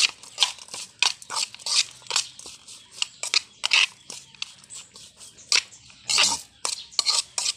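Chopped pig's-face meat and onion being mixed by hand in an aluminium basin for sisig, with a spoon clinking and scraping against the metal: irregular wet crunches and clicks, several a second.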